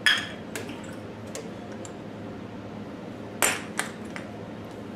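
Sharp metallic clinks of metal parts or tools knocking together, each with a short ring: a loud one right at the start, a few light taps, and another loud pair about three and a half seconds in.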